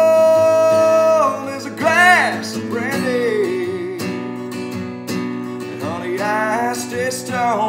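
A man sings a slow country-soul ballad over a strummed acoustic guitar. A long held note ends about a second in, then come bending, ornamented vocal runs over the steady guitar chords.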